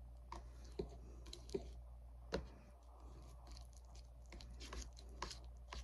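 A metal fork clicking and scraping softly in a frozen-dinner tray while working at mashed potatoes: faint, scattered small clicks, one sharper click about halfway through.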